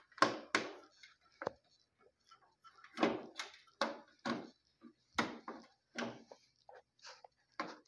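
A series of irregular sharp clicks and knocks, about a dozen, as hard objects are handled.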